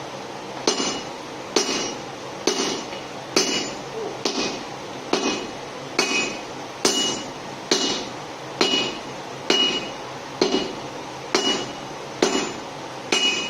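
Hand hammer striking hot steel on an anvil in a steady rhythm, about one blow a second, each blow with a short metallic ring: drawing out a section of forklift fork by hand, without a power hammer.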